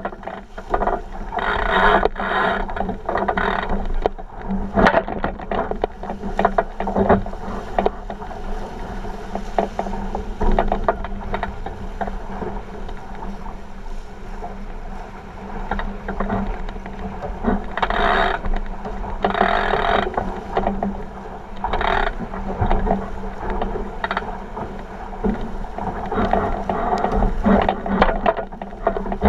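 Water rushing and splashing along the hull of a 49er skiff sailing fast, with frequent irregular knocks and rattles from the boat's fittings and rigging.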